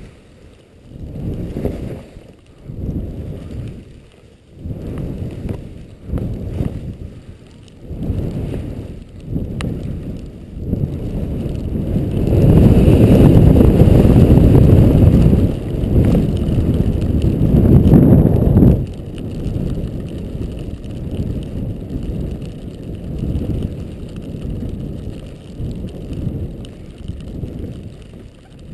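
Skis swishing through soft powder snow in rhythmic turns, a surge of snow noise every second and a half or so, with wind on the microphone. About twelve seconds in, a loud steady rush takes over for some seven seconds, then the softer turn-by-turn swishes return.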